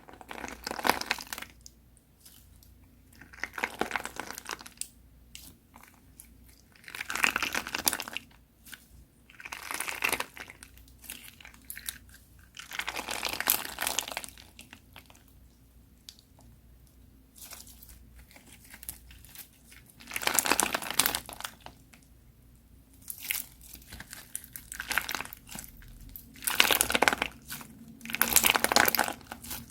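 Crunchy slime being squeezed and pressed by hand, crackling in short bursts about every one to three seconds, with brief pauses between presses.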